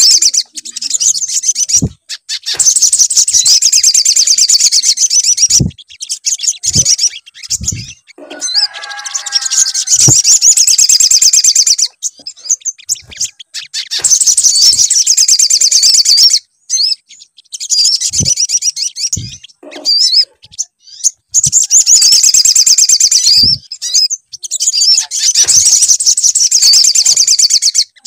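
Sogon bird song played as a lure recording: long, rapid, high-pitched trilled phrases of a few seconds each, repeated with short gaps. A lower warbling call comes about eight seconds in, and short low thumps are scattered through.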